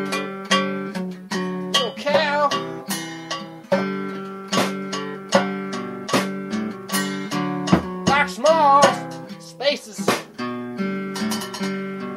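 Acoustic guitar music: a continuous run of plucked notes, each struck and then fading, with a wavering higher melody line about two seconds in and again around eight seconds in.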